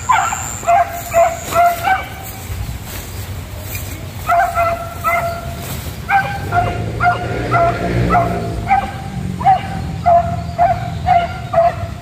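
Hunting beagle giving tongue: short, high yelping barks about two a second, with a gap of a couple of seconds early on, then a steady run to the end. This is the cry a hound makes while working a scent after quarry.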